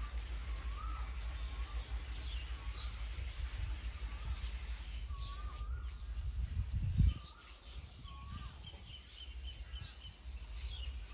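Birds calling: a short wavering note repeated every second or two, with small higher chirps between. Under them runs a steady low rumble that swells and then drops off sharply about seven seconds in.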